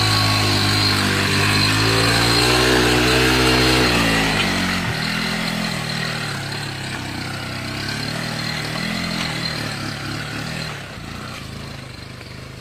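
Small motorcycle engine pulling away, its pitch climbing, then dropping suddenly at a gear change about four seconds in, rising again and fading as the bike rides off.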